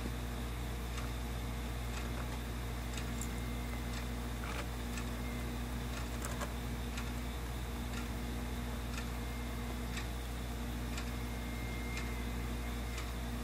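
Steady low hum with a light, sharp tick about once a second, and a few extra irregular clicks in between.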